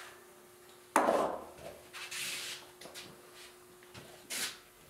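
Handling noise from tools in a surfboard shaping room: a sharp knock about a second in, then fainter rubbing and scraping of wood and tools, over a faint steady hum.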